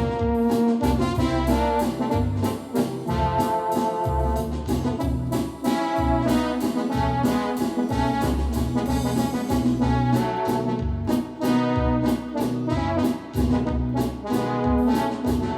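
Yamaha DX7 FM synthesizer playing a brass-like patch in a melodic line over a steady beat and bass.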